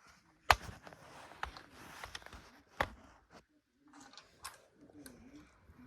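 A few sharp clicks and knocks from handling a fire alarm pull station and hex wrench while resetting it, the loudest about half a second in.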